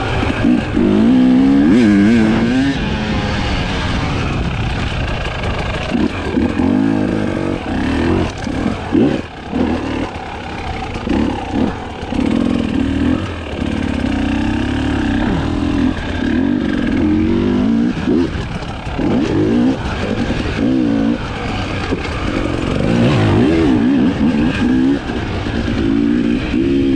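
Husqvarna TE 300i single-cylinder two-stroke enduro engine under hard riding, revving up and down over and over as the throttle is worked, with brief cuts and stabs of throttle.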